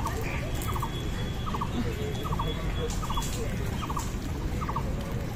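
A bird repeating a short, quick three-note call over and over, a little more than once a second, over a steady low rumble.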